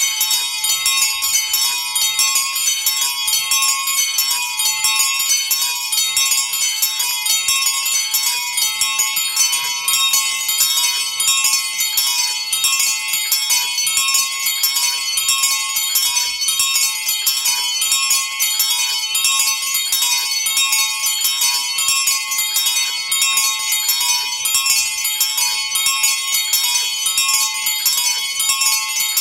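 Small bronze bells of a miniature motor-driven bell tower swinging and ringing together, their clappers striking in a steady, overlapping peal.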